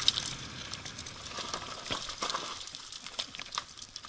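Bike tyres rolling fast over a loose gravel and dirt trail, with a steady hiss of crunching stones and many small clicks and rattles from the bike. The hiss is loudest in the first couple of seconds and eases off after that.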